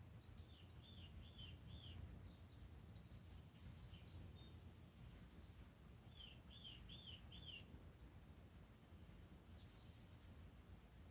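Faint birdsong over a low steady hum: a bird repeats a phrase of four quick chirps twice, about five seconds apart, with higher chirps in between and near the end.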